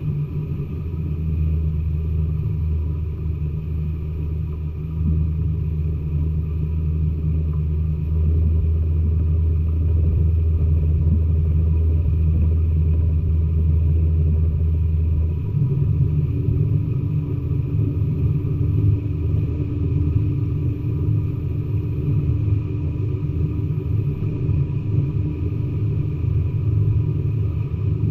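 A steady, low engine rumble that shifts in pitch about halfway through.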